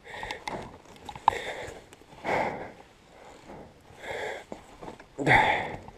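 A person's heavy breathing close to the microphone: several loud, irregular breaths about a second apart, the deepest about two seconds in and near the end, the panting of someone worn out.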